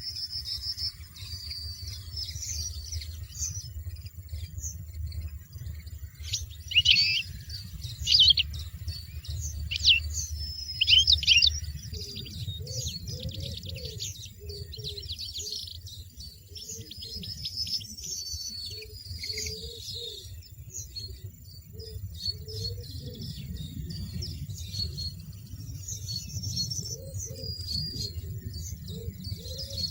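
Small songbirds, goldfinches, chirping and twittering steadily, with several loud sharp call bursts between about 7 and 12 seconds in, over a low background rumble.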